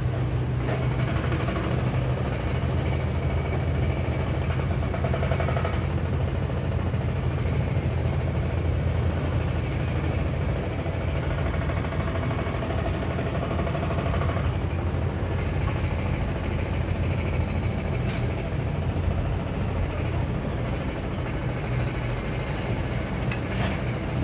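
A heavy engine running steadily: a loud low drone with fainter steady whining tones above it.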